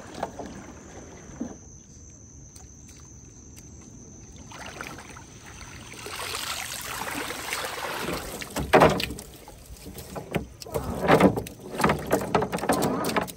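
Water splashing and streaming off a cast net, then a catch of shrimp and small baitfish spilling with water out of the net into a plastic tub, with several loud knocks and splashes in the last few seconds.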